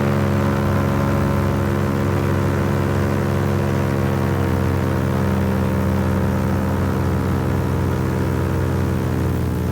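Paramotor engine and propeller running steadily in flight, holding an even pitch, with the pitch easing down slightly near the end.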